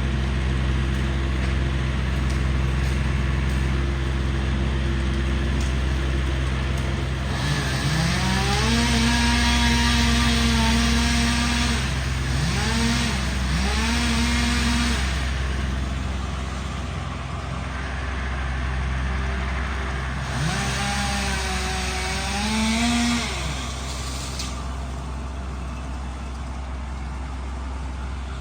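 Chainsaw revving up and running at high throttle in several stretches, falling back between them, over a steady low engine hum.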